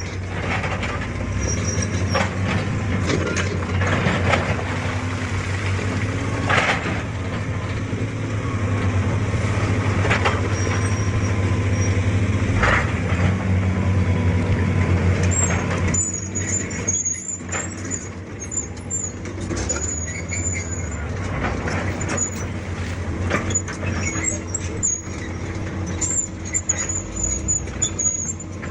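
Excavator's diesel engine running steadily under work, with scattered knocks and clanks. About halfway through, high-pitched squeaking starts and recurs.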